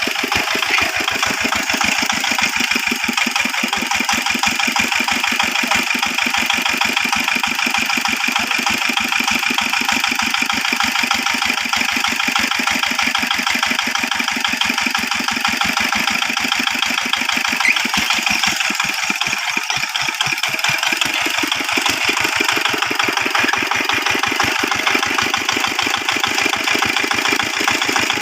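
A hand tractor's single-cylinder diesel engine running steadily with an even, rapid firing beat.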